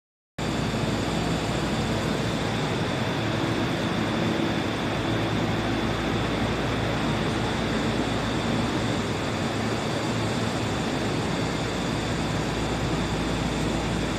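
Steady running noise of a Tokyo Metro Marunouchi Line train heard from inside the car: an even, dense rumble with a faint steady high whine. It starts abruptly about half a second in.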